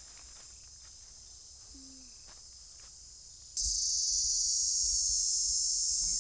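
Insects shrilling in a steady high drone with no words over it, getting much louder about three and a half seconds in.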